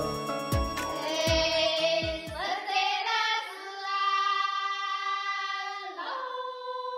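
A Zhuang folk song (shan'ge) opening: a few drum strikes, then a high solo voice holding long, drawn-out notes. About six seconds in the voice steps down to a lower held note.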